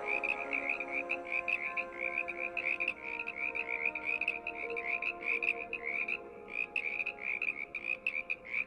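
A dense chorus of frogs calling, many short croaks overlapping in quick succession, with a brief lull about six seconds in. The tail of background music fades out underneath during the first few seconds.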